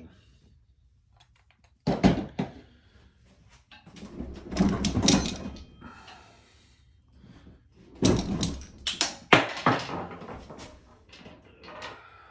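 Bumps, knocks and rustling handling noises in three bursts: about two seconds in, around five seconds in, and again around eight to ten seconds in.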